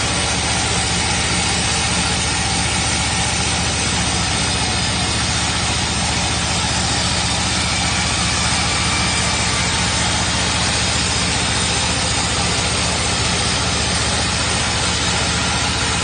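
Portable band sawmill running steadily, its engine and band blade cutting along a log as the saw head advances.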